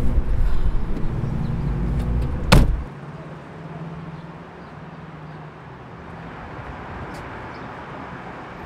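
Low rumble inside a car's cabin, cut off by a car door slamming shut about two and a half seconds in. After that there is only a quieter outdoor background with a faint low hum.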